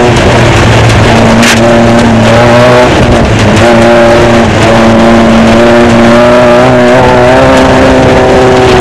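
Off-road desert race car's engine running hard at mostly steady high revs, its pitch dipping and stepping briefly a few times, heard loud and harsh through an in-car dash camera along with road and wind noise. A sharp knock comes about a second and a half in.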